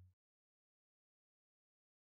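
Near silence: the last trace of the fading song's low notes stops right at the start, then nothing.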